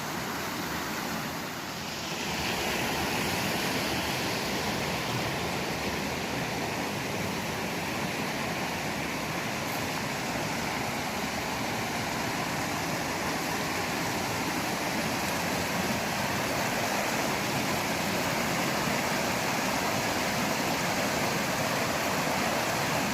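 Creek water rushing in a steady roar, growing a little louder about two seconds in and then holding.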